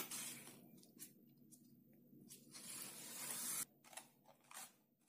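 Scissors cutting through a sheet of coloured paper, faint. One long cut builds and stops suddenly, followed by a few short snips.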